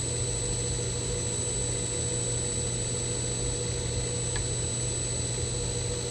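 G0704 milling machine, converted to belt drive with a 1.5 horsepower motor on a VFD, running steadily without cutting: an even hum with a steady high-pitched whine over it. A single faint click about four seconds in.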